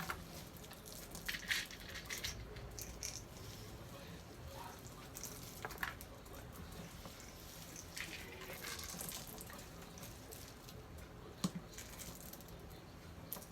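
Scattered light clicks and rattles of small plastic toy beans and a plastic scooper being handled in a chicken-feeding game, with a sharper click about eleven and a half seconds in.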